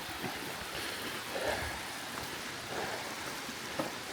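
Munising Falls' waterfall rushing as a steady, even hiss, with a few soft knocks.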